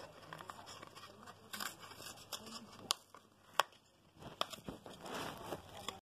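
Cockatoo clambering on a cardboard tube: its claws grip and scrape the cardboard, with crinkling and tearing sounds and a few sharp clicks around the middle.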